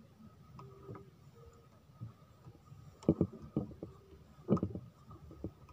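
Dull knocks and bumps on a small wooden boat as a handline is worked by hand, the loudest two about three and four and a half seconds in, over a low rumble.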